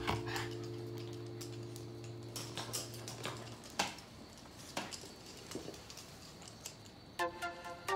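Light, scattered clicks and taps of dog claws and a clear plastic hamster ball rolling and bumping on a wooden floor. A held note of music dies away over the first few seconds, and music starts again near the end.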